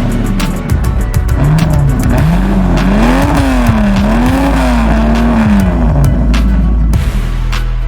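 Loud soundtrack sound effect: a deep tone swooping up and down about once a second, like a slow low siren, over a heavy steady rumble.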